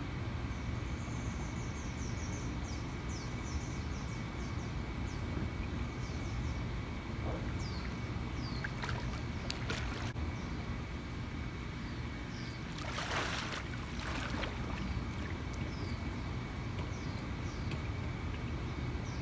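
Water splashing in a swimming pool as a swimmer moves and surfaces, loudest about thirteen seconds in, over a steady low rumble. Birds chirp in short high calls, most busily in the first few seconds.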